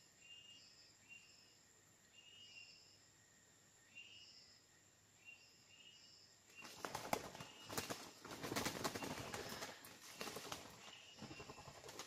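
A short high chirp repeating about once a second, then about seven seconds in a burst of junglefowl wings flapping hard and scuffling in dry leaf litter for about four seconds, with a shorter flurry near the end.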